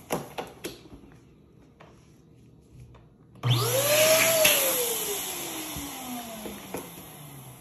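A few soft latex squeaks and clicks from a balloon being handled and tied. Then an electric balloon inflator blows a small latex balloon: its motor starts abruptly a little past halfway and runs loudly, its hum rising briefly and then falling slowly as it dies away.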